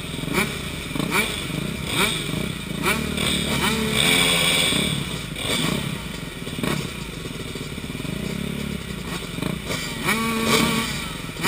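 Dirt bike engines running at low speed, the throttle blipped again and again so the engine pitch keeps rising and falling, with one longer rev about four seconds in.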